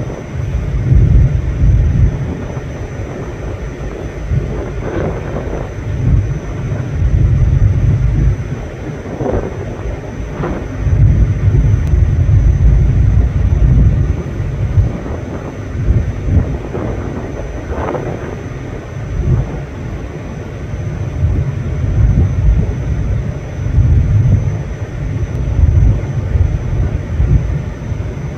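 Wind buffeting the microphone: a low rumble that comes in gusts, swelling and dropping every few seconds.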